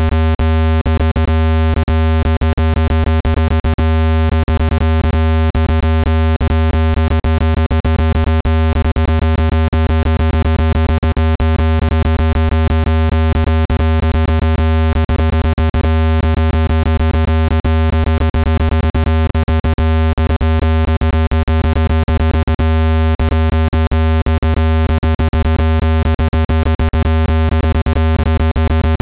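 Synthesized speaker-cleaning tone: a loud, steady deep buzzing tone with a stack of higher overtones, crackling with many rapid irregular clicks, meant to vibrate dust out of a phone or speaker grille.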